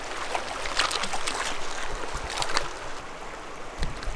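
Shallow creek riffle flowing steadily, with several short, irregular splashes as a hooked rainbow trout is landed by hand and lifted from the water.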